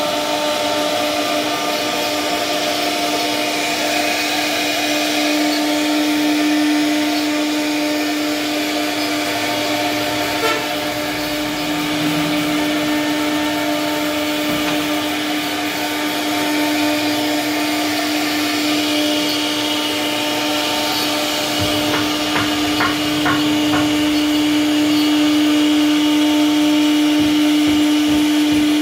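CNC router spindle running with a steady whine as its bit carves a mahogany panel, with a few light clicks about 22 seconds in.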